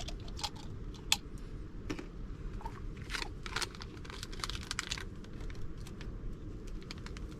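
Drink-mix pouch crinkling and tapping against a water bottle as orange beverage powder is poured in: irregular small clicks and rustles, thickest about three seconds in.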